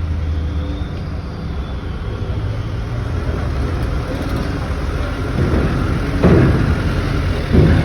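Diesel truck engine running with a low steady rumble that grows louder in the second half, with two loud surges near the end.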